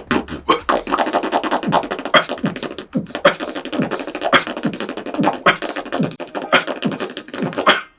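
Solo beatboxing: a fast, dense run of mouth-made drum sounds (kicks, snares and hi-hats) with short downward-sliding low notes about twice a second.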